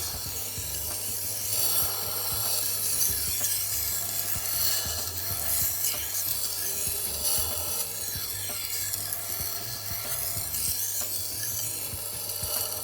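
Steel fillet knife blade drawn back and forth across the turning wheel of a Tormek T-1 electric kitchen knife sharpener with light pressure: a steady rasping grind over the motor's low hum, swelling and easing with each stroke.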